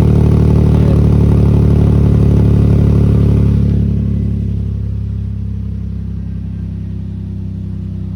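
Nissan's engine running with a loud exhaust leak, blowing out raw like a straight pipe. It gets quieter a little under four seconds in.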